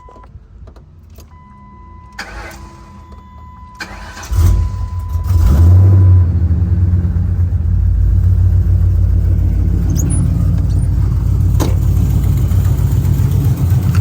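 Cammed Ford Crown Victoria V8 being started about four seconds in, after a steady electronic beep. It catches at once with a short rev, then settles into a loud idle. This is the first start after an oil change, with the engine run to check for oil leaks.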